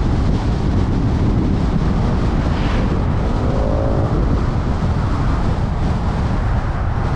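Car driving along a mountain highway: steady road and wind noise, with a short faint tone about halfway through.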